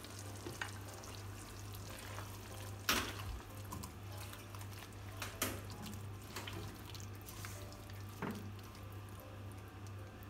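Spatula stirring meatballs in sauce in a stone-coated wok: a faint wet stirring with a few short knocks of the spatula against the pan, about three, five and eight seconds in, over a steady low hum.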